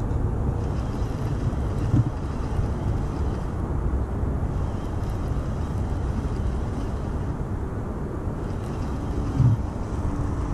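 Steady low rumble of wind on the microphone, with two brief knocks, one about two seconds in and one near the end.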